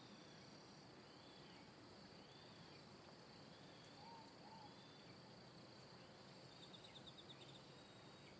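Near silence: faint high chirps repeating about once a second over a steady high hiss, with a short rapid trill near the end.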